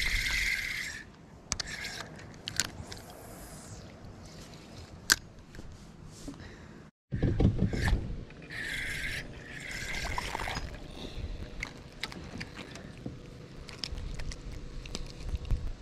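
Fishing tackle being handled in a kayak: scrapes, rubs and clicks of the spinning rod, reel and line against the hull. There are short hissing bursts at the start and around the middle, and a low thump just after a brief dropout about seven seconds in.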